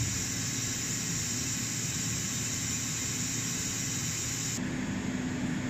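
CNC milling machine running: a steady hiss with a low hum. About four and a half seconds in, the high hiss drops away and a steady low hum tone remains.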